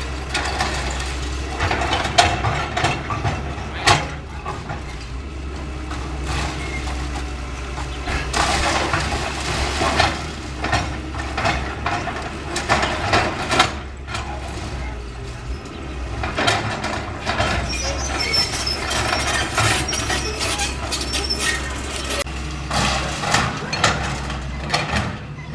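Caterpillar 325L hydraulic excavator's diesel engine running steadily under repeated crashing and crunching of concrete and debris as it breaks up a building. The crashes come in clusters, with a sharp loud hit about four seconds in.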